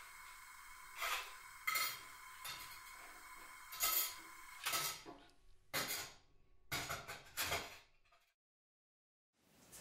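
A series of sharp clinks and knocks of hard objects, irregular and a second or less apart, over a faint steady hum. The hum stops about halfway through, and the sound cuts to complete silence for about a second near the end.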